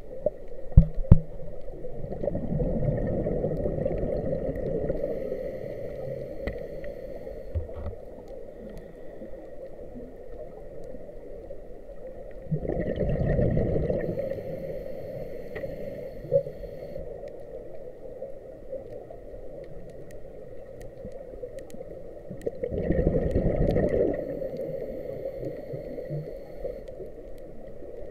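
A scuba diver breathing underwater through a regulator: exhaled bubbles rush out in three bursts about ten seconds apart, each lasting one to three seconds. There are a few sharp clicks about a second in.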